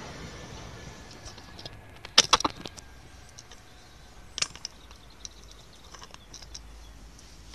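Sharp clicks and knocks of a phone camera being handled and turned round: a quick cluster about two seconds in, the loudest part, and another about four and a half seconds in, with a few small ticks after. Under them the rumble of a departing train dies away over the first few seconds.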